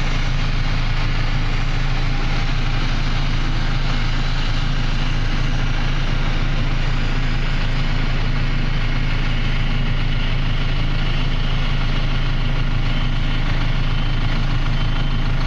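Cat D6K2 dozer's six-cylinder diesel engine idling steadily, a constant low drone with no change in speed.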